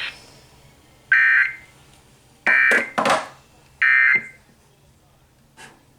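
Emergency Alert System end-of-message data bursts: three short, harsh warbling digital tone bursts about a second and a half apart, the coded signal that closes the alert broadcast. A sharp click follows the second burst.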